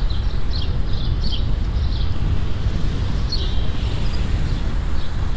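Steady low rumble of wind on the microphone and passing street traffic during a bicycle ride, with a few short high chirps in the first second or so and again about three seconds in.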